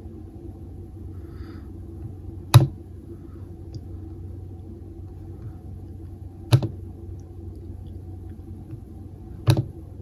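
Three sharp clicks, a few seconds apart, as links are clicked on a laptop, over a steady low hum.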